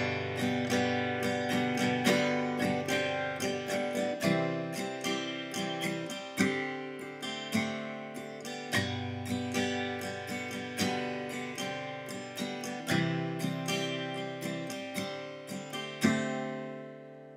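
Martin D-28 acoustic guitar strummed in a steady rhythm through a G, G suspended second, C and D chord progression, with the third fret of the first string and the first fret of the second held so they ring through every chord. The last chord, about a second before the end, is left to ring out and fade.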